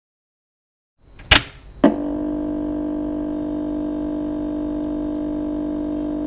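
Two sharp clicks about half a second apart, then a steady hum of several held tones.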